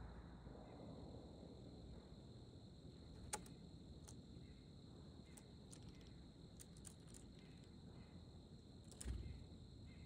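White-breasted nuthatch pecking at pistachio pieces on a wooden deck railing: a few sharp taps and clicks, a quick run of them about seven seconds in, and a soft thump just before the end. Under it, a faint steady high-pitched hum.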